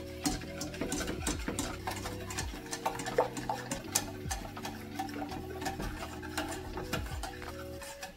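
Wire balloon whisk clicking and scraping rapidly against the sides and bottom of a stainless steel saucepan as a thin custard of milk and egg is whisked over high heat, with soft background music.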